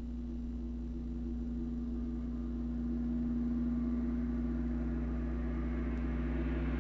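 A low sustained tone, like a held synthesizer drone, holding one pitch and slowly growing louder over a constant deep hum.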